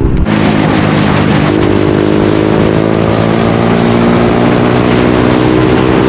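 KTM Duke 200's single-cylinder engine and exhaust running steadily under the rider, its pitch edging up about a second and a half in as the revs rise.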